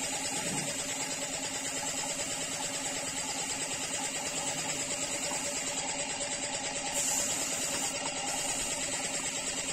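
A paint spray gun hissing as it sprays, over a small motor or pump running steadily with a fast, even pulse. The hiss grows stronger about seven seconds in.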